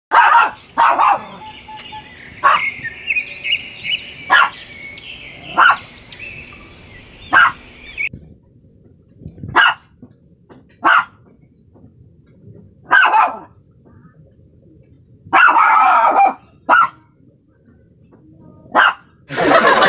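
Shih Tzu puppy barking in short, sharp yaps, about a dozen at irregular gaps: its noisy morning wake-up barking. A high, wavering chirping runs behind the barks for the first several seconds.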